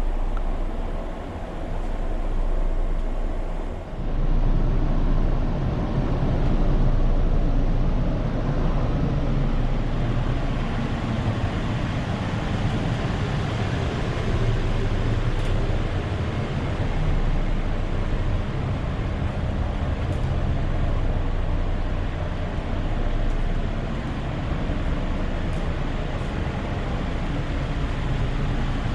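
Steady low rumble and hum inside a P865 light rail car, the car's own machinery and running noise filling the cabin. It grows louder and deeper about four seconds in, with a few faint ticks later on.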